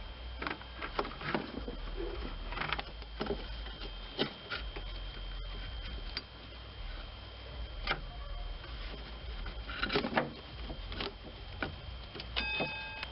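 Scattered knocks, clicks and rubbing of a serpentine belt being worked off its pulleys and out of the engine bay by hand. A short pitched tone sounds near the end.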